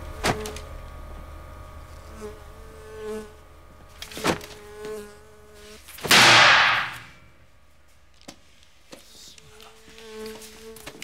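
A fly buzzing on and off, its drone coming and going as it moves about. There are two sharp clicks, and about six seconds in a loud rush of noise lasting about a second.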